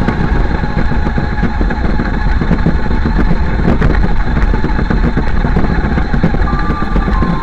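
Radio-controlled car running, its motor making a steady, loud engine-like noise.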